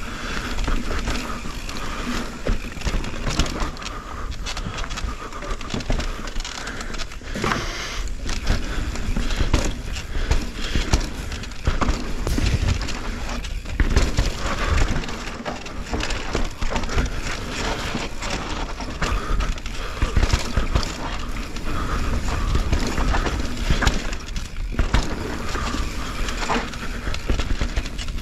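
Mountain bike riding fast down a forest dirt trail: tyres running over dirt and roots, with frequent knocks and rattles from the bike over bumps and a constant low rumble.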